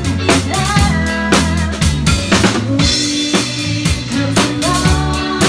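Live pub band playing, the drum kit loudest: a steady beat of kick, snare and rimshots over bass and sustained guitar or keyboard notes.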